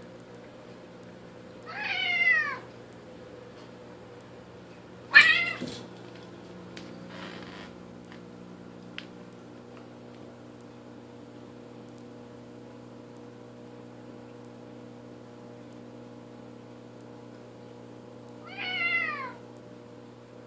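Two domestic cats squaring off, giving three drawn-out yowls that fall in pitch, about two seconds in, about five seconds in (the loudest), and near the end. These are the warning yowls of cats about to fight. A steady low hum runs underneath.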